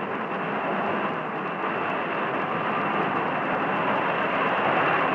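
Jet aircraft in flight: a steady, even rushing engine noise that builds slightly, dull-topped as on an old film soundtrack.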